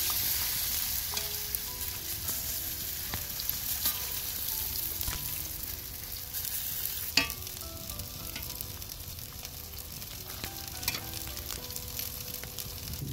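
Grated-potato patties frying in hot oil in a wide metal pan: a steady sizzling hiss, strongest at the start and easing a little, with small crackles. A metal slotted spoon taps and scrapes the pan now and then, with one sharp tap about seven seconds in.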